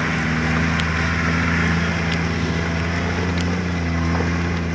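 Toyota Land Cruiser 70-series engine running steadily at a low, even pitch as the truck crawls through deep mud, with a few faint ticks now and then.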